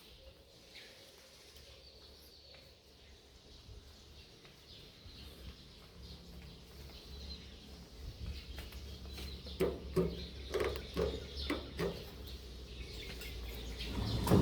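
Birds chirping faintly, with a run of short, sharp sounds in the second half.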